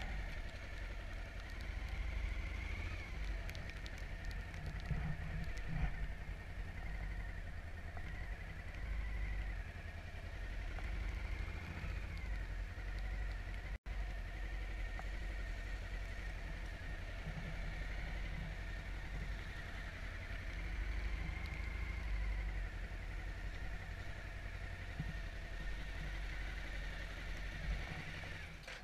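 Suzuki DL1000 V-Strom's V-twin engine running as the motorcycle rolls along slowly, heard from the rider's helmet camera. The sound cuts out for an instant about halfway through.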